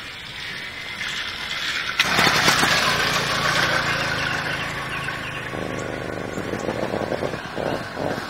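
Two-stroke motorized-bicycle kit engine starting up sharply about two seconds in, then running and rising and falling with the throttle as the bike rides past.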